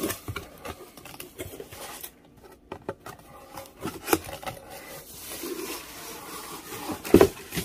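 Cardboard box flaps being pulled open and handled, with scraping and rubbing of cardboard and rustling of a cloth helmet bag. A couple of sharper knocks come about four seconds in and near the end.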